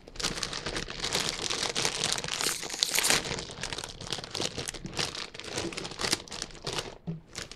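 Lay's potato chip bag crinkling loudly as it is handled and pulled open by hand at the top seal, a dense run of crackles that peaks about three seconds in.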